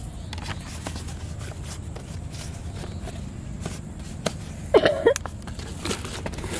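Handling noises: a plastic bait jar and its screw lid clicking and knocking, and a woven plastic shopping bag rustling as the jar is put into it. A brief, loud squeak about two-thirds of the way through.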